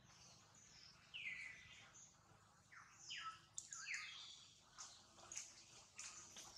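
Birds chirping: a handful of short calls, each falling quickly in pitch, coming irregularly over a faint background.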